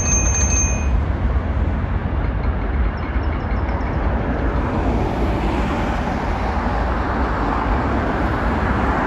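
Jet airliner on final approach. A steady engine rumble and rushing noise, with a high whine building from about halfway through as the aircraft comes closer.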